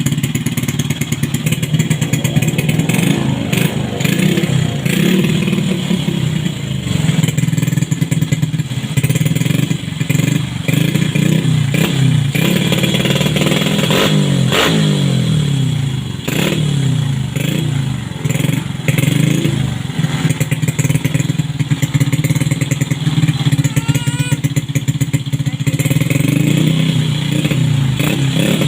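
Bored-up Honda Supra motorcycle engine, a single-cylinder four-stroke, running on a test start: idling with short throttle blips and a longer rev up and back down about halfway through.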